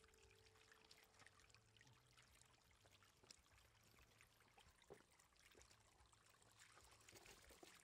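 Faint trickle of shallow water running over mud and stones, with scattered small splashes and wet ticks as catfish flap in the shallows and are handled.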